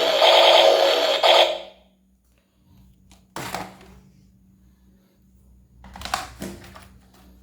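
A loud electronic sound with several steady pitches cuts off about a second and a half in. It is followed by a short clatter about three seconds in and a cluster of clicks and rattles near six seconds: toy guns being handled.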